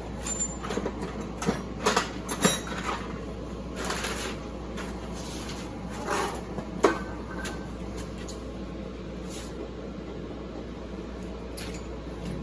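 Scattered metal clinks and knocks of bolts and tools being handled, the sharpest about two and a half and seven seconds in, over a steady low hum.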